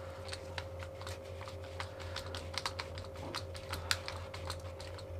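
Quick irregular small clicks and taps of an insulated screwdriver turning a terminal screw in a red 32 A three-phase plug, with gloved hands handling the plastic plug and ferrule-crimped wire ends, over a faint steady hum.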